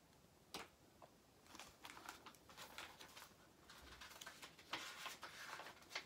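Faint rustles and small clicks of a paperback book being handled, with one sharper click about half a second in and a denser run of rustles near the end.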